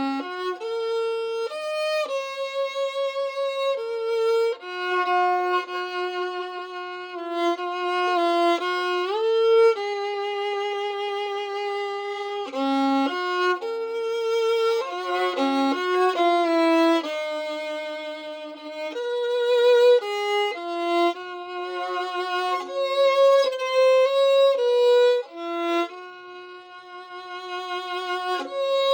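Skylark violin strung with Larsen Tzigane strings and a Pirastro Chromcor E string, bowed solo: a melody of held notes with vibrato and slides between notes. There is one clear upward slide about nine seconds in, and the playing softens for a moment near the end.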